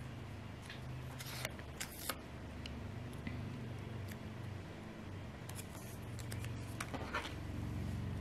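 Quiet handling of paper stickers being peeled and pressed onto a planner page: a few faint clicks and a short rustle near the end, over a low steady hum.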